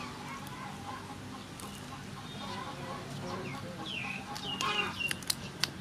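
Chickens clucking, with one louder, drawn-out call a little after four seconds in. A few sharp clicks near the end come from the shell of a cooked mantis shrimp cracking as it is peeled by hand.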